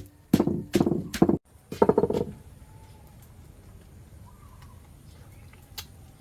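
Knife chopping on a wooden block: a quick run of strokes in the first second and a half and one more cluster about two seconds in. After that only faint background with a few light ticks.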